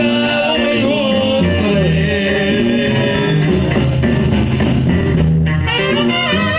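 Live banda music from a brass band: sousaphone bass notes under trumpets and trombones, with drums.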